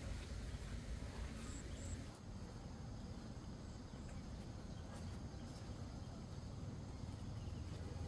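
Outdoor ambience in a garden: a steady low rumble with faint insects buzzing high above it and a few small clicks and leaf rustles as pumpkin flowers are picked. The background drops slightly about two seconds in.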